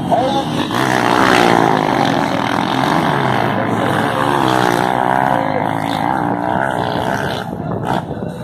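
Several motocross bikes riding past together, their engines revving up and down at overlapping pitches. The sound swells about a second in and fades near the end as they move off.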